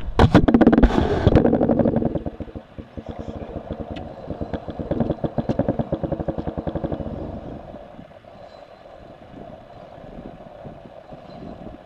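Fishing reels ticking rapidly while two hooked fish are fought at once, over wind buffeting the microphone that is loudest in the first two seconds. The ticking fades out about seven seconds in.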